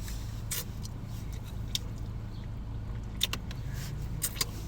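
Chewing and biting into crispy fried chicken wings, with a few short crunches and mouth clicks scattered through, over a steady low rumble inside a car.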